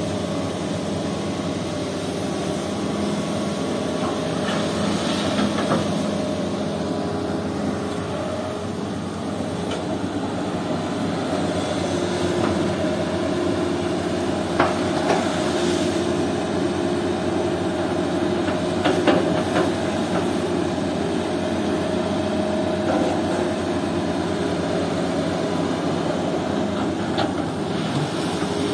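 Heavy diesel engines of a Hitachi crawler excavator and Mitsubishi dump trucks running steadily, with a handful of sharp knocks and clanks as the bucket works and drops gravel into a steel truck bed.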